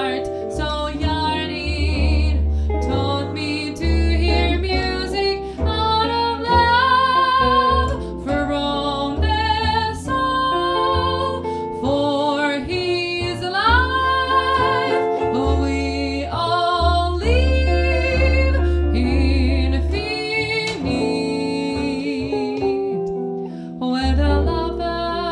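Jazz trio playing a ballad: plucked guitar chords and bass notes under a female voice singing a wordless melody with vibrato and sliding pitches.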